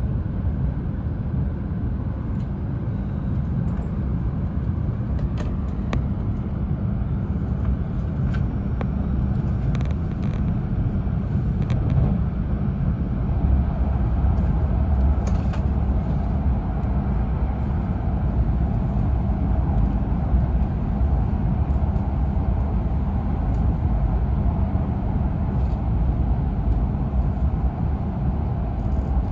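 E5-series Shinkansen running at speed, heard inside the passenger car: a steady low rumble, with a few light clicks in the first half.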